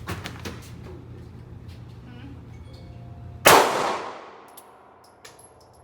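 A few light clicks, then about three and a half seconds in a single loud gunshot whose ringing tail dies away over about a second.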